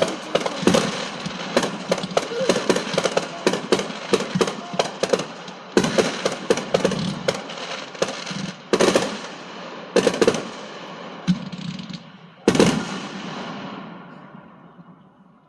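Fireworks going off: a rapid, dense string of cracking bangs, then several louder single booms, the crackle dying away near the end.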